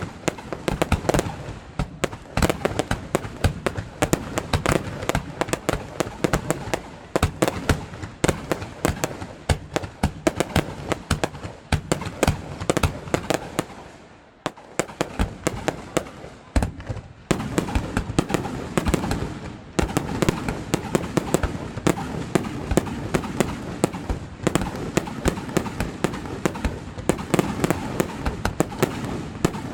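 Fireworks display: a continuous barrage of overlapping bangs and cracks from bursting shells. The bursts thin out briefly about halfway through, then resume thicker and denser.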